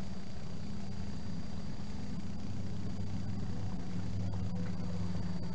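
An engine idling steadily: a low, even hum that holds at one pitch.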